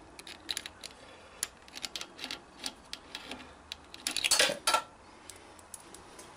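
Small metal parts and tools clinking and rattling as they are handled, a run of scattered sharp clicks with a louder burst of clattering about four seconds in, one piece ringing briefly.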